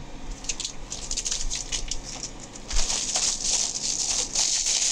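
Crinkling and rustling of packing paper being crumpled and bubble-wrapped packages being handled: a run of small crackles that grows busier and louder about three seconds in.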